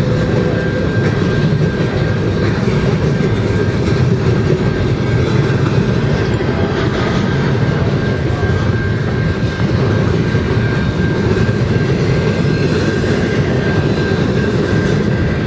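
Double-stack intermodal well cars of a CN freight train rolling past close by: a loud, steady rumble of steel wheels on rail, with a faint high steady whine through much of it.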